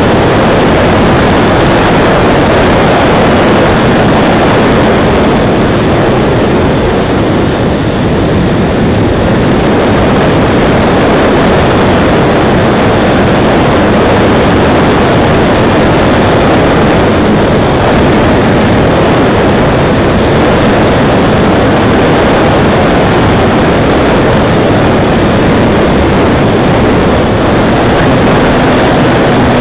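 FunCub RC model plane in flight, heard from its onboard camera: a loud, steady rush of propeller and motor noise mixed with wind over the microphone.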